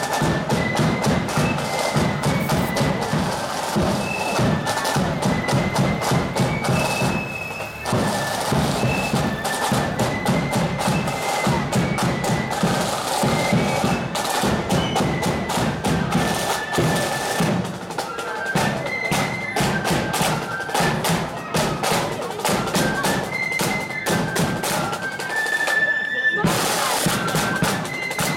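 Marching flute band playing a march on parade: a high flute melody over rattling snare drums and a steady bass drum beat. The drums drop out briefly near the end while a flute note is held.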